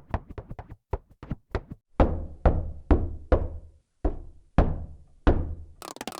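Digitally altered knocking sound effect of a hand knocking: first a quick run of faint knocks, then seven louder knocks, each with a long echoing tail. Near the end a denser, different knock variation begins.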